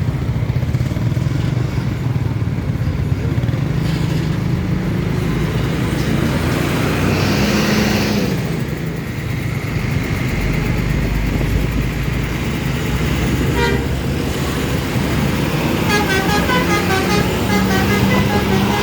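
Road traffic with vehicle engines running steadily; near the end a bus's telolet horn plays a quick, repeating multi-note tune for a few seconds.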